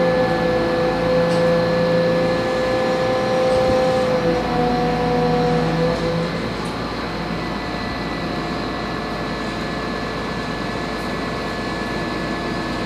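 Large crane's engine and hydraulic hoist running steadily while lifting a heavy load, with a whining tone that stops about six seconds in, leaving a slightly quieter steady hum.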